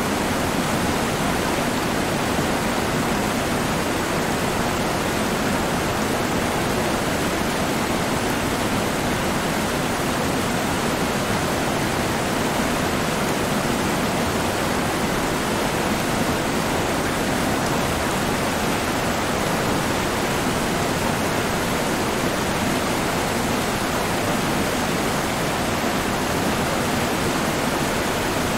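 Steady rushing of flowing river water, an even noise that holds at one level throughout.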